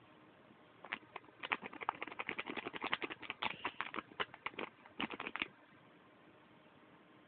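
Plastic candy bag crinkling in a quick run of crackles as it is prodded, starting about a second in and stopping suddenly after about five seconds.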